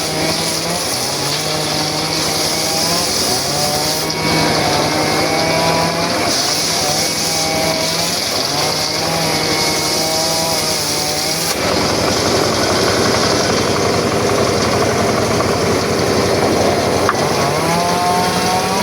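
Circular saw cutting very hard sogho wood, the blade's pitch wavering up and down as the cut loads and eases. Partway through the tone drops out into a rougher, noisier stretch for several seconds, then the wavering tone returns near the end.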